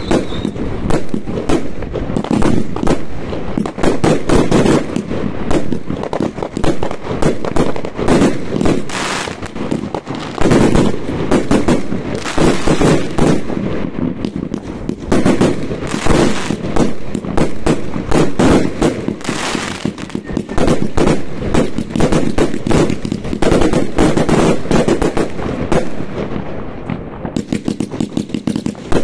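New Year's fireworks going off in a dense, continuous barrage of rapid bangs and crackles, with no pause.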